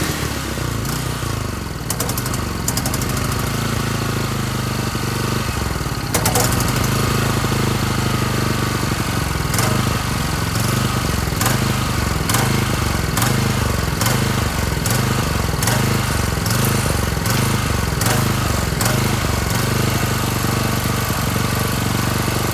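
Gasoline engine of a 3400-watt inverter generator running just after a pull start. About six seconds in it speeds up. From about eight seconds on its speed rises and falls about once a second, surging, which the owner puts down to a badly dirty carburetor.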